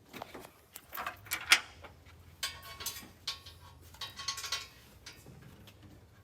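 Hand tools and metal parts clinking and clicking in an irregular run of sharp clicks, the loudest about a second and a half in, as headers are worked into place on an engine.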